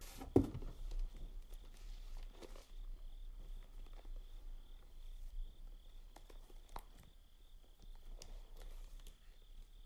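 Crickets chirping in an even, pulsing rhythm, faint and steady, with a single knock about half a second in and a few light clicks and rustles.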